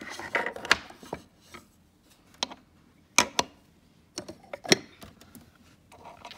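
Toy pieces and dolls being handled and set down on a small dollhouse table: a handful of separate sharp taps and clicks, with some rustling of handling in the first second.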